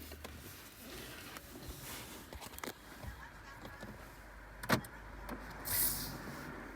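Power door lock mechanism of a 2007 Honda CR-V being worked: scattered light clicks, then one sharp clack about two thirds of the way in, followed by a short hiss.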